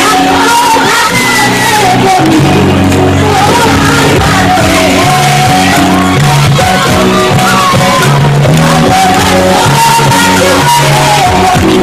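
A woman singing a pop song through a loud PA over band backing with steady bass notes, with a crowd of students shouting and singing along.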